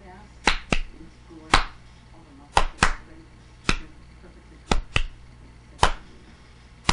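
Rhythmic percussion beat of sharp snapping clicks, a pair then a single, about one beat a second, over a faint low hum.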